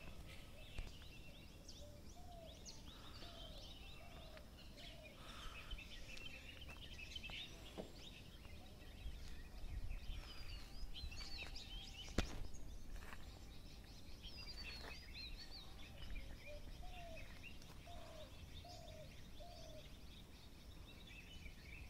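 Several birds singing and chirping together, with one repeating a phrase of four or five short low notes twice. A couple of sharp clicks and a steady low rumble sit beneath.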